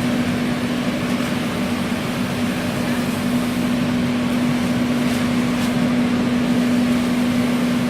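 Ginger washing machine running: a steady motor hum over continuous, even noise.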